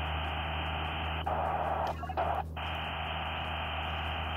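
Icom IC-705 receiver audio: a steady hiss of HF band noise with a low hum underneath. About a second in, the noise swells louder for under a second, then cuts out briefly twice.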